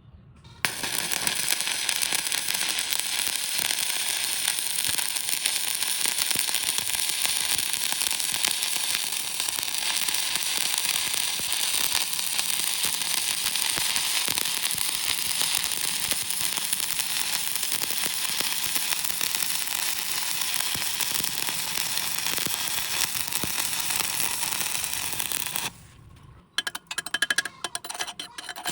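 Electric welding arc burning with a steady, dense crackle and sizzle. It breaks off near the end, followed by a few short sputters as the arc is struck again.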